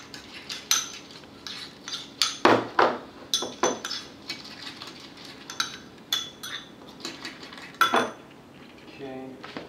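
Metal spoon stirring a thickening egg-and-oat mixture in a ceramic bowl, clinking and scraping against the bowl in irregular taps, with a few louder knocks.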